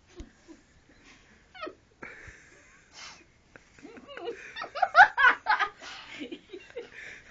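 People laughing: scattered at first, then breaking into loud, hearty laughter about four seconds in.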